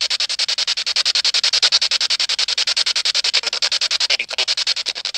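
Ghost-hunting spirit box sweeping through radio stations: hissing static chopped into rapid, even pulses, about a dozen a second.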